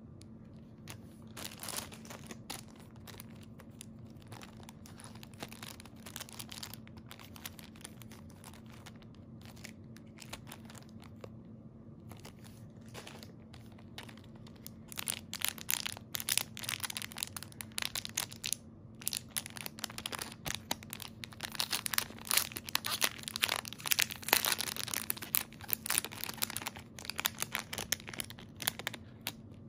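Clear plastic zip-lock jewelry bags crinkling and rustling as they are handled and opened. The crinkling is sparse at first, then grows louder and busier about halfway through. A steady low hum runs underneath.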